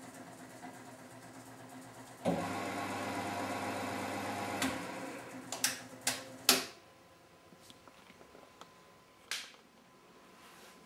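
Miele W 425 front-loading washing machine running with a steady hum; about two seconds in a louder machine sound cuts in suddenly and runs for a couple of seconds, then fades. Three sharp clicks follow, after which the machine is almost quiet, with a few faint ticks and one more click near the end.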